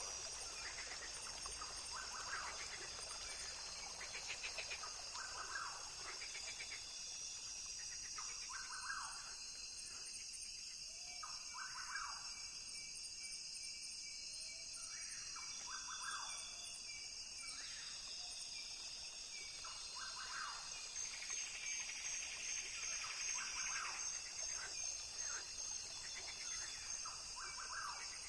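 Rainforest ambience: a steady chorus of insects buzzing and trilling, with short animal calls repeated every second or two.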